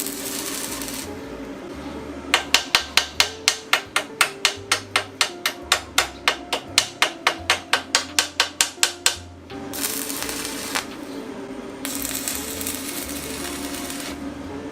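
Welding on a Yamaha DT125 motorcycle frame: bursts of steady hiss that start and stop abruptly, and in the middle a fast, even run of sharp taps, about five a second, the loudest sound here. Background music plays throughout.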